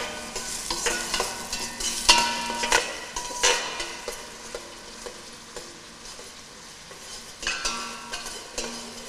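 Chopped onions sizzling in hot oil in a stainless steel pot as they are sautéed toward pink, stirred with a metal slotted spoon that scrapes and clinks against the pot. The scraping strokes come thickly in the first few seconds and again near the end, with quieter sizzling between.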